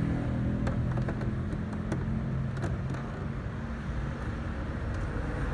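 Steady low mechanical rumble with a few faint light clicks.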